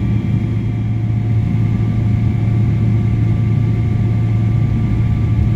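Steady low cabin rumble inside a Boeing 777-300ER on the ground, its GE90-115B engines at idle, with a constant hum and a few faint steady whining tones above it.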